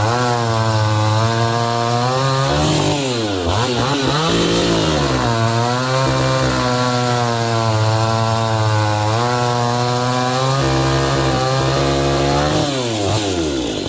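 Husqvarna 162SE two-stroke chainsaw running at high revs, its pitch dipping and climbing back about three to five seconds in, then falling away sharply near the end as the revs drop.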